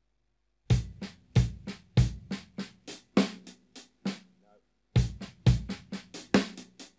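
Drum kit played slowly: a paradiddle-style sticking pattern of single and double strokes, about three a second, with bass drum hits under it. It comes in two phrases with a short break a little past halfway.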